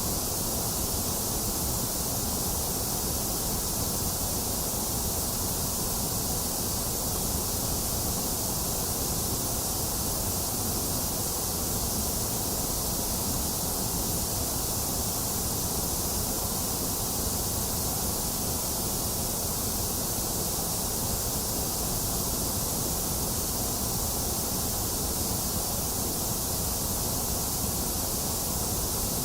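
Steady, unchanging white noise from a sleep and focus track: a constant bright hiss with a rumble underneath and a thinner middle, never rising or falling.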